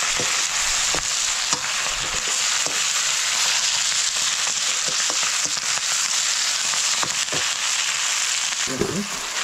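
Food frying in hot oil in a pan, a steady sizzling hiss with scattered small pops and crackles.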